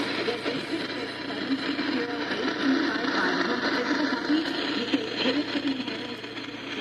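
Band-limited radio broadcast audio, an indistinct mix of voice and music with no bass and dull highs.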